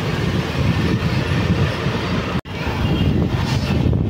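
Wind rumbling on the microphone along with the road noise of a moving motorbike or scooter, a dense steady rumble with a brief dropout about two and a half seconds in.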